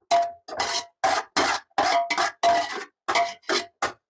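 Metal spoon scraping and knocking against a metal cooking pan in quick repeated strokes, about ten in all, each with a short ringing tone, as rice is stirred into the leftover masala.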